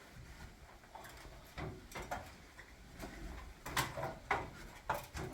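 Irregular light knocks and clicks, several in a row, louder and closer together in the second half.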